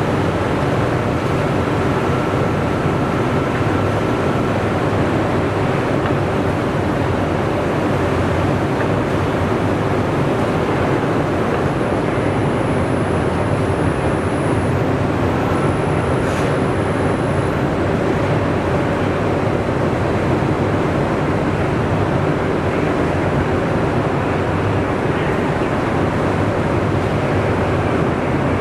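HE&M industrial metal-cutting band saw running steadily, a constant dense mechanical noise with a faint held tone through it.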